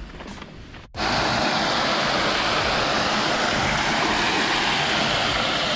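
Water pouring over the lip of a small concrete spillway onto a metal mesh grate: a loud, steady rush that starts suddenly about a second in.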